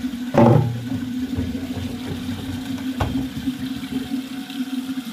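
Tap water pouring in a steady stream into a stainless steel pot. There is a loud knock about half a second in and a sharp click near three seconds.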